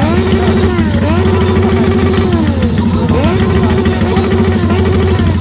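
Motorcycle engine idling steadily with an even, rapid low pulse.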